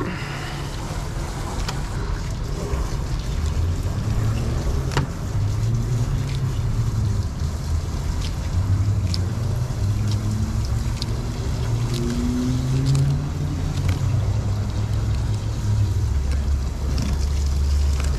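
A boat engine running at low revs, a steady low rumble whose pitch drifts slightly up and down, with a few light clicks scattered through it.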